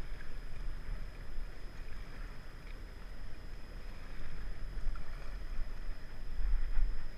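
River water rushing around a raft, with wind buffeting the microphone in uneven gusts that grow stronger near the end.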